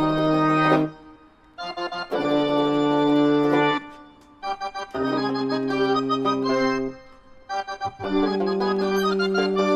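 Live street band's wind instruments, a brass horn among them, playing long held chords in a stop-start pattern: four chords of about one and a half to two seconds each, broken off by short pauses.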